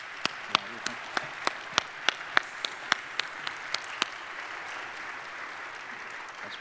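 Audience applauding, with one person's sharp hand claps close to the microphone standing out, about three a second, until about four seconds in; then the general applause carries on alone.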